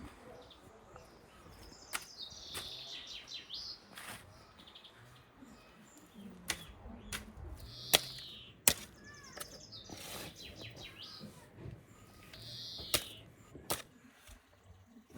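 Small birds chirping in several short bursts, with a series of sharp knocks scattered through, the loudest a pair about eight and nine seconds in.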